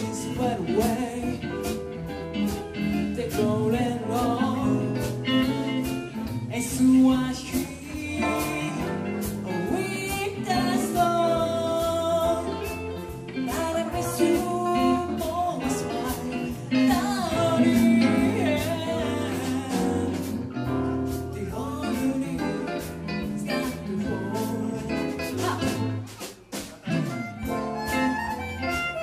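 Live band playing a song: a woman singing over electric guitars and a drum kit.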